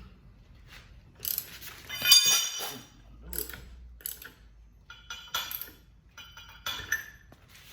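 Irregular metallic clinks and rattles of lug nuts and hand tools being handled, with one brighter ringing clink about two seconds in.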